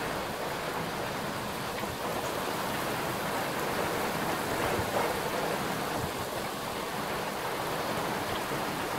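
Heavy rain pouring down in a microburst thunderstorm, a steady dense hiss that swells a little about five seconds in.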